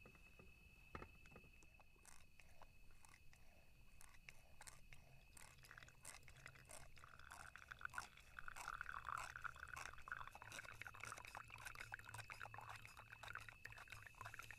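Wacaco handheld espresso maker being hand-pumped, a run of quick soft clicks, with a soft hiss of espresso spraying into the cup from about seven to ten seconds in.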